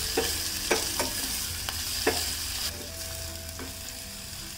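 Sliced onions sizzling in oil and butter in a stainless steel saucepan as they are stir-fried until soft, with a spatula scraping and knocking against the pan several times in the first two seconds. The sizzle eases a little after about two and a half seconds.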